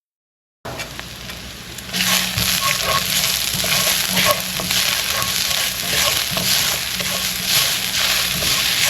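Beef fillet sizzling as it sears in a hot oiled pan, a dense crackling hiss that starts about half a second in and grows louder at about two seconds.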